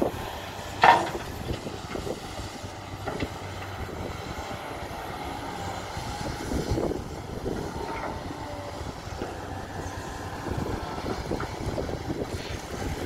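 SANY SY215C hydraulic excavator working: its diesel engine runs steadily under load as it empties a bucket of soil into a dump truck's bed, swings back and digs into the pile again. A single loud bang about a second in stands out above scattered lighter clanks and knocks.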